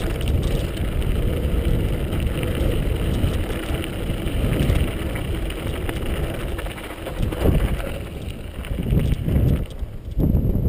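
Wind buffeting a GoPro HD's microphone over the rumble and rattle of a mountain bike rolling fast downhill on a loose gravel track, growing quieter near the end as the bike rolls onto smooth tarmac.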